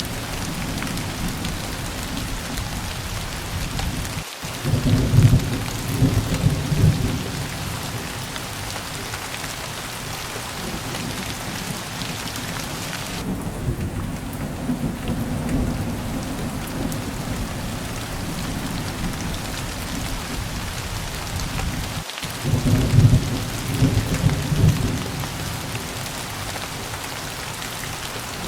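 Steady heavy rain hissing without a break, with two low rolls of thunder about 4 seconds in and 22 seconds in, each lasting two to three seconds.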